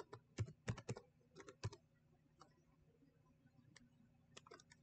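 Faint keystrokes on a computer keyboard: a quick run of typing over the first second and a half or so, then a few scattered key clicks.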